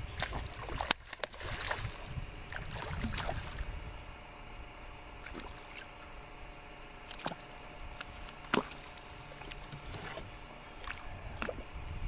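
Scattered knocks and clunks of gear being handled in a small boat, the loudest about a second in and again past eight seconds, over a steady high cricket trill.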